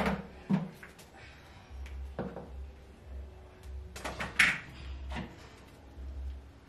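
Kitchen handling sounds: a few separate knocks and clunks as things are moved about on a worktop, with a louder clatter about four and a half seconds in.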